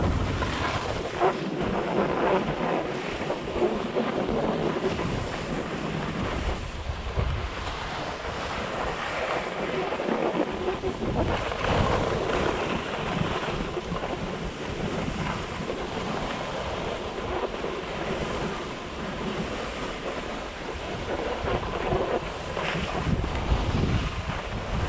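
Skis hissing and scraping as they carve down packed snow, with wind buffeting the microphone in a low, gusting rumble.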